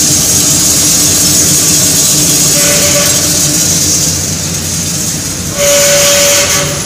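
Hot air popcorn making machine running: a steady hum of its electric motor and hot-air blower with a high hiss. A higher whine comes in twice, the second time louder for about a second near the end.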